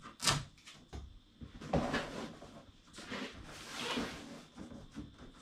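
Handling noise from plywood panels being shifted and laid in place: a sharp knock just after the start, another knock about two seconds in, and a longer sliding scrape with small knocks.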